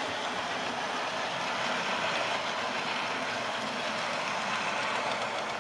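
OO gauge model trains running on the layout's track, a steady rolling noise of wheels on rail and small motors.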